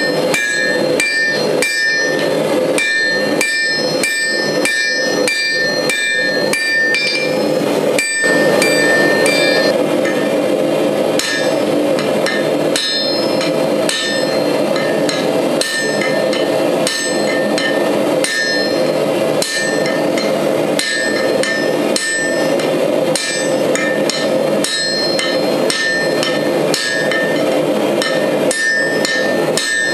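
Hand hammer striking a glowing steel axle bar on an anvil, at first about two blows a second and then at a slower, more spaced pace, each blow leaving a ringing tone from the steel. Later the bar stands upright and its end is being upset into a thick hammer head. A steady rushing noise runs underneath.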